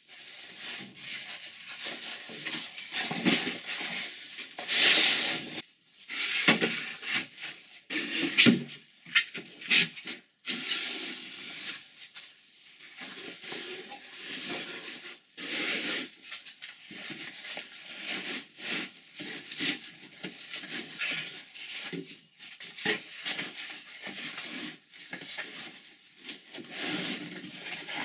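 Rustling and rubbing as a heavy fabric mat is spread out on a vinyl floor and plastic whelping-pen panels are handled and set in place, with irregular scrapes and occasional sharp knocks.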